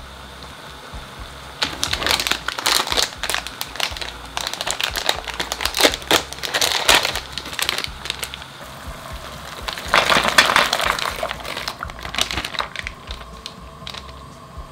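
Plastic bag of frozen broad beans crinkling as it is handled, in two spells of rustling with a lull between them.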